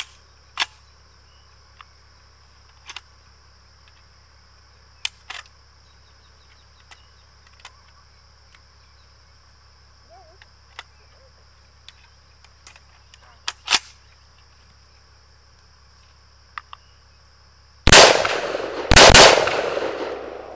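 Light metallic clicks and clacks of a Galil-pattern 5.56 rifle being worked by hand while clearing a failure to feed. Near the end, two rifle shots about a second apart, each followed by a long echo.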